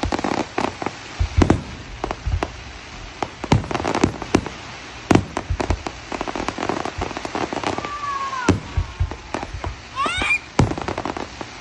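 Fireworks going off: many sharp bangs and pops in irregular quick succession. Two brief gliding pitched tones, one falling about eight seconds in and one rising about ten seconds in.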